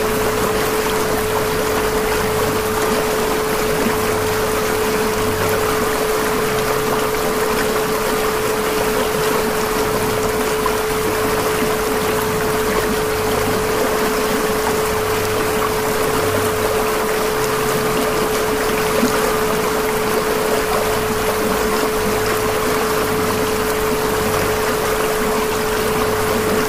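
A steady 432 Hz tone held without a break over a bed of rushing, water-like noise, with faint low notes shifting slowly underneath: the backing of a 432 Hz subliminal audio track.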